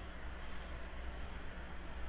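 Steady background hiss with a constant low hum from the nest camera's outdoor microphone; no distinct call stands out.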